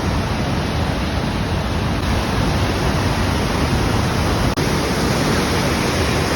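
Waterfall: a steady rush of falling water, with a momentary break about four and a half seconds in.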